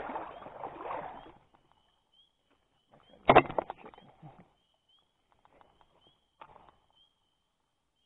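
Stream water splashing close by: one loud, sudden splash about three seconds in, then smaller sloshes, and a faint short splash near the end. Faint, evenly repeated high chirps of a bird run behind.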